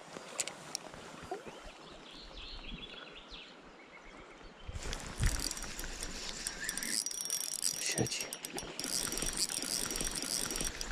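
Shimano Sephia spinning reel being cranked during a retrieve, ticking softly. About five seconds in, the sound changes abruptly to a louder steady hiss of river water with scattered clicks.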